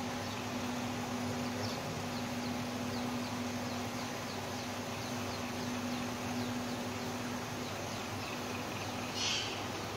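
Bread gulab jamun dough balls frying in hot oil: a low, steady sizzle with faint little pops ticking along, over a constant hum. A brief louder hiss about nine seconds in.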